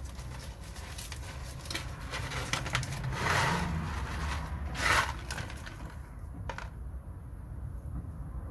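Paper seed packet crinkling and rustling as it is opened and pea seeds are shaken out, with small crackles and two louder rustles about three and five seconds in, over a steady low hum.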